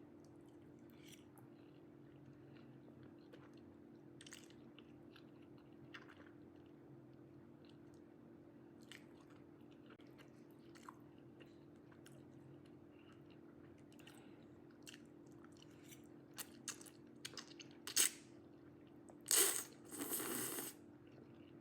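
A person eating: quiet chewing with small scattered mouth clicks, then a few sharper clicks and a loud crunching near the end.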